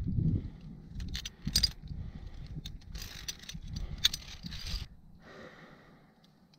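Via ferrata climbing gear clinking and jangling, metal carabiners and lanyard hardware, with scraping and rustling. A few sharp metal clicks come just over a second in, then a longer stretch of scraping and jangling between about three and five seconds.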